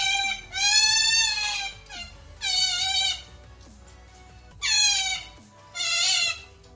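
An animal calling over and over in high-pitched, bleat-like cries: five calls, one of them longer at about a second, the rest about half a second each.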